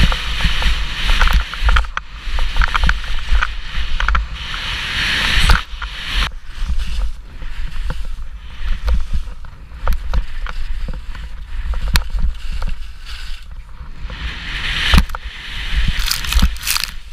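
Skis running fast downhill over snow, with wind buffeting the microphone as a constant low rumble. The skis' hiss and scrape is strong over firmer, tracked snow in the first few seconds and again near the end, and softer through the deep powder in between.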